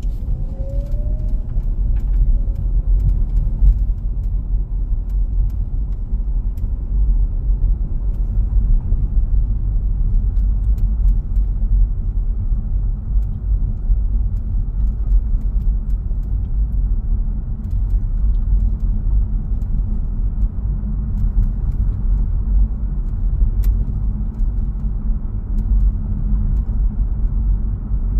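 Steady road and tyre rumble inside the cabin of a moving 2018 Lincoln MKZ Hybrid, with faint, scattered clicks. The clicks are the clicking/creaking from around the B-pillar, cause not found; the owner suspects the weather stripping.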